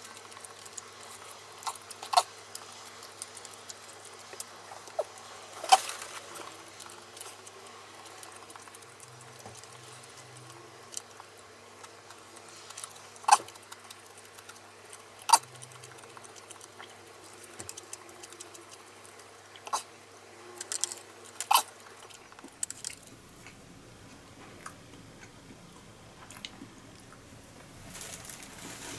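Eating sounds played at four times speed: sharp clicks of chopsticks on a plastic sushi tray, a few seconds apart, with faint quick chewing over a steady low hum.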